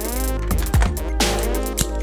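Electronic dance music with a deep bass, gliding synth tones and a heavy kick drum about once a second.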